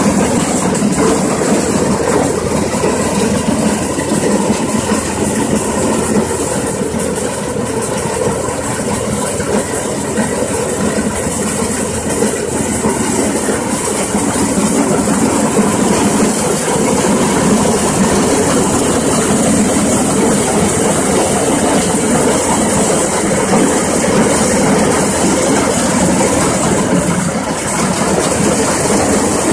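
Multicrop paddy thresher running under load: a steady, dense mechanical clatter and hum from its threshing drum, shaking sieve and fans.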